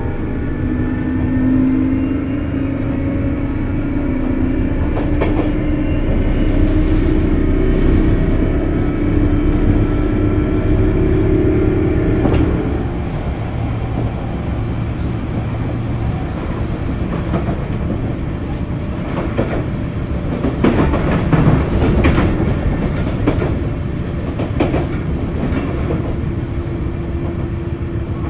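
Sotetsu 8000 series electric train's Hitachi GTO-VVVF inverter and traction motors whining in several slowly rising tones as the train accelerates, the tones cutting off about twelve seconds in as power is shut off. The train then coasts, with wheel rumble and rail-joint clatter.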